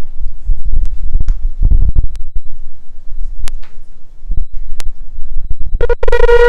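Low rumbling thumps and a few sharp clicks, then about six seconds in a ram's-horn shofar begins one long, steady blast.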